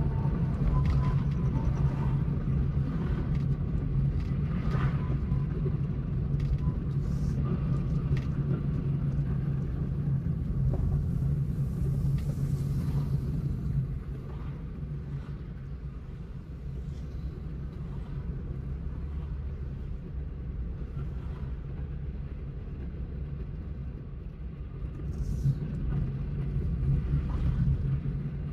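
Car driving on the road, a steady low rumble of engine and road noise. It eases off about halfway through and rises again near the end.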